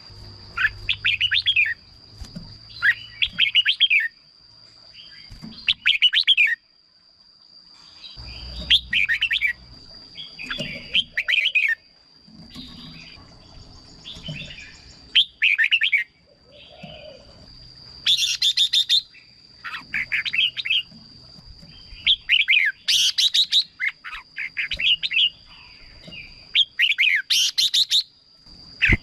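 Red-whiskered bulbul singing short, bright, whistled phrases every second or two, with a thin steady high whine underneath.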